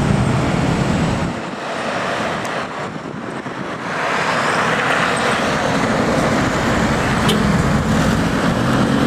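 Heavy diesel buses passing close by on the highway. A loud engine hum dies away about a second in, a steady hiss of tyres on the road comes in from about four seconds, and another engine's hum builds near the end.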